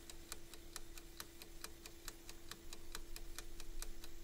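Fast, even ticking of a stopwatch-style timer sound effect, about five ticks a second, over a steady faint hum.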